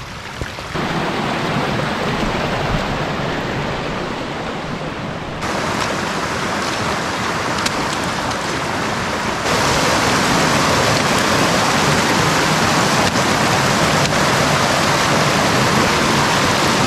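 Mountain creek water rushing and splashing over rocks, a steady noise that jumps louder suddenly about five seconds in and again about nine and a half seconds in.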